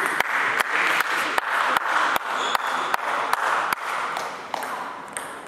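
Spectators applauding after a point, with sharp individual claps standing out about two or three times a second. The applause dies away about four seconds in.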